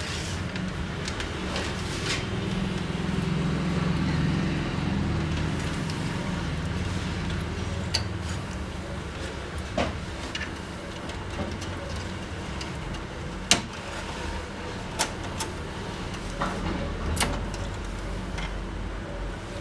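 Scattered sharp clicks and taps of printer parts being handled and unfastened during disassembly, over a steady low hum.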